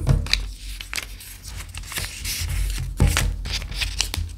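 A sheet of origami paper being folded and handled on a table: rustling and creasing, with several sharp crinkles, the loudest about three seconds in.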